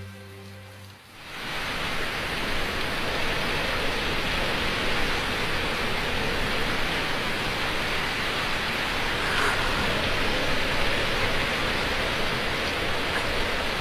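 Soft music ends about a second in, and a steady rushing of water takes over.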